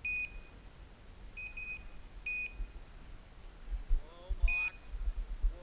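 Electronic beeper collar on a hunting dog giving short, high, steady beeps at uneven gaps, some in pairs. A faint wavering voice-like sound comes a little past the middle, over low thumps.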